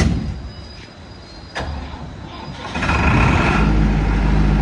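A click, then a Tata Cummins 62.5 kVA four-cylinder turbocharged diesel generator in its soundproof canopy starting up: the engine catches about three seconds in and settles into a steady run.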